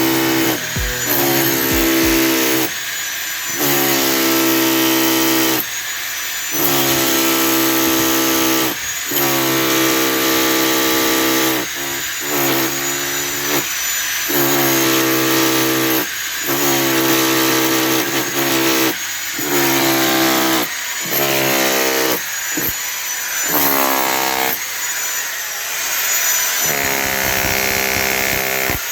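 Electric power tool running in repeated bursts of about one to two seconds, with short pauses between, a steady motor whine under a hiss.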